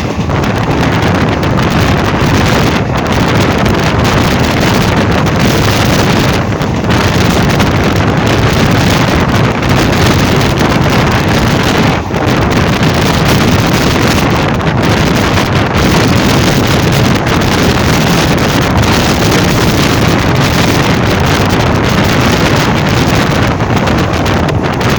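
Passenger express train rushing through a station at about 95 km/h without stopping: a loud, steady rumble of wheels on rails that doesn't let up, with wind buffeting the microphone.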